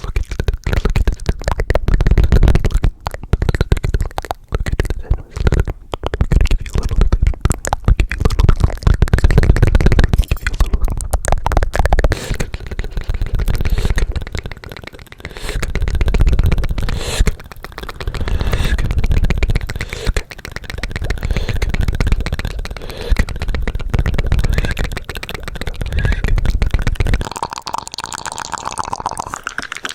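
ASMR mouth sounds made right against the microphone: dense, rapid wet clicks and smacks with heavy low thumps, coming in swelling bursts of a few seconds each.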